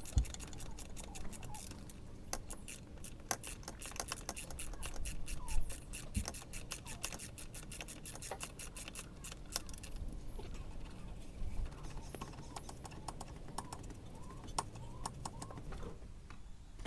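Socket ratchet clicking in quick runs as the last 12mm nut holding the stock exhaust is undone, with small metallic clinks of the tool and exhaust parts being handled; the clicking thins out over the last several seconds.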